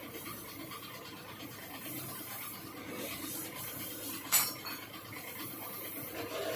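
Small metal parts of a removed motorcycle cam chain tensioner being handled and worked open, with faint scraping and rubbing and one sharp click a little past the middle.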